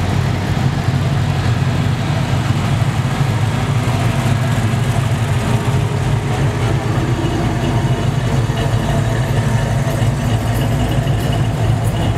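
Car engines idling as a line of cars rolls slowly past one after another: a steady low rumble with no sharp revving.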